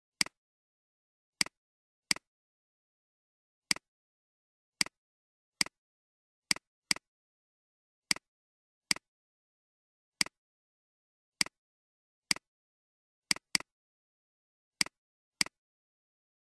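Computer mouse clicks: about seventeen short, sharp clicks at irregular intervals, some in quick pairs, with silence between.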